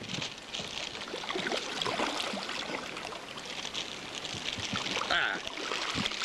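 Water splashing and trickling around a canoe as it is paddled, with small knocks and clicks.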